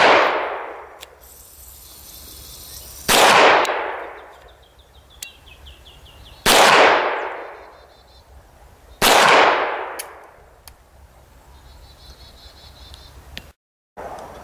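Four pistol shots, spaced about three seconds apart, each echoing and fading over about a second.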